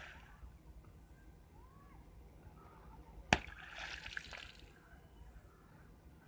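A thrown rock hits a shallow muddy pool about three seconds in with a sharp smack, followed by about a second of splashing as the water falls back.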